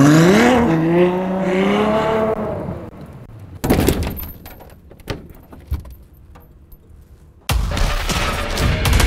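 Ferrari 812 Superfast's V12 revving, its pitch rising for about a second, then holding steady before it fades. A few quieter sharp clicks and knocks follow, and near the end a sudden loud rushing noise sets in.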